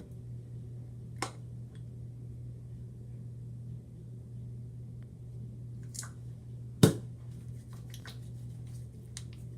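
A few sharp clicks and taps from handling containers while adding an ingredient to slime, the loudest about seven seconds in, over a steady low hum.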